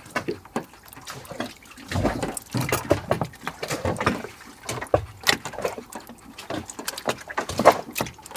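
Irregular wet splashing and knocks as cleaned conch meat is scooped by hand from a plastic bucket of water and handled in a stainless steel bowl.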